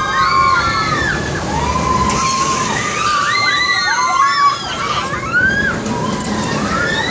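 Riders on a swinging pendulum thrill ride screaming together: many overlapping high screams that rise and fall, over a steady rushing noise.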